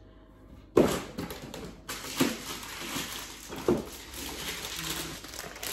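Rustling and clattering handling noise that starts suddenly about a second in, with a few short knocks.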